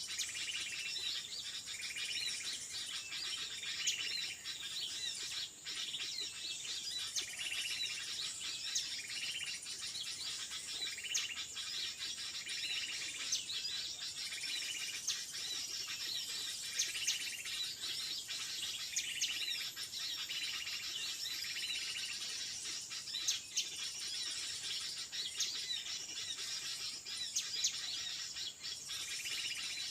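Small birds calling, short notes repeated roughly once a second, over a steady high-pitched drone of insects.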